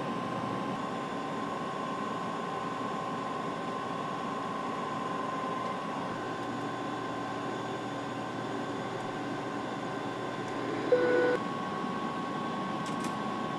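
Steady flight deck background noise, an even hum and hiss with faint steady tones. About eleven seconds in, a brief tone sounds.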